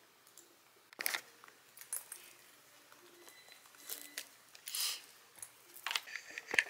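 Faint rustling and a few sharp clicks of things being handled, the sharpest about a second in and just before the end, over quiet room tone.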